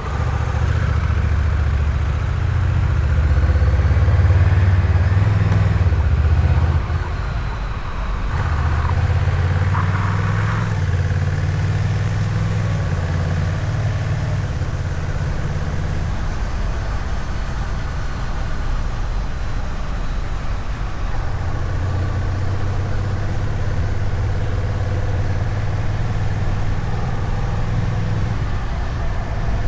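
Honda Rebel 1100 DCT's parallel-twin engine running through the stock exhaust on the move, with wind and road noise. The engine sound drops briefly about seven seconds in, and the low note thins for a few seconds around the middle before coming back.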